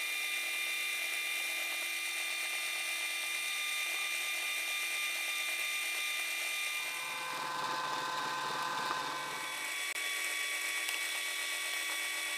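Drill press motor running steadily while boring holes into a soft-wood cabinet door. The tone changes for a few seconds from about seven seconds in, with an added low hum.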